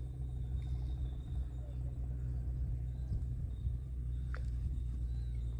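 Steady low hum of an engine running at a constant speed, with a faint, thin, steady insect whine above it and one short falling chirp about four seconds in.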